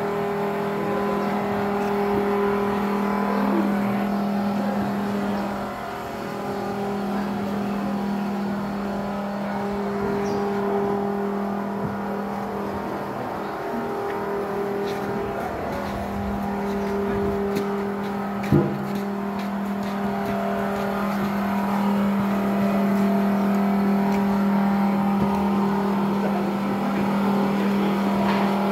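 Komatsu PC210 excavator's diesel engine running steadily with an even low hum, and one sharp knock about two-thirds of the way through.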